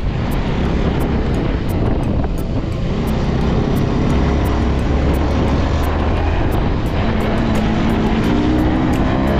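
Motorcycle engine running over heavy wind rumble on the rider's microphone while riding. About seven seconds in, the engine note rises steadily as the bike accelerates.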